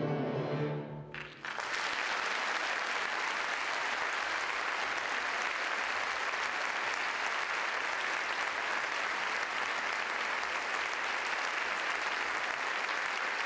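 The music ends on a held chord about a second in, and an audience breaks into steady applause that fills the rest.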